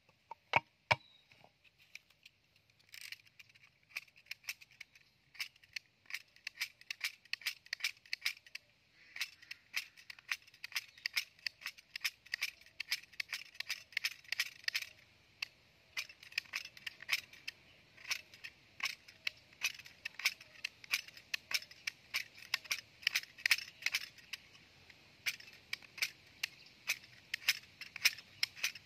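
A small knife shaving and scraping a short section of bamboo in quick, short strokes, a few each second, each a dry high scratch. Two sharp knocks come just before the shaving begins.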